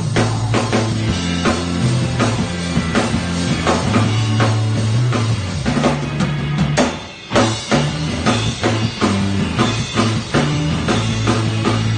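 Rock music with a full drum kit keeping a steady beat over a bass line, dropping out for a moment about seven seconds in and then coming straight back.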